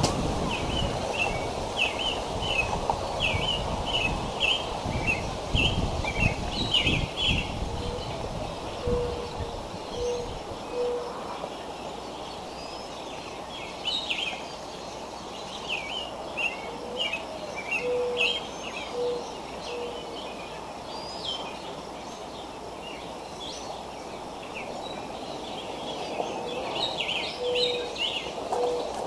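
Outdoor birdsong: small songbirds chirp in quick, high notes throughout, and a mourning dove coos about every nine seconds, each time three low, even notes. In the first ten seconds a low rumbling runs under the birdsong.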